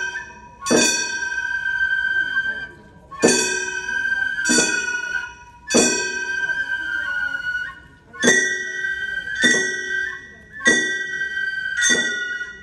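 Gion bayashi festival music: small hand-held brass gongs (kane) struck about eight times, unevenly spaced one to two and a half seconds apart, each strike ringing on with bright metallic overtones.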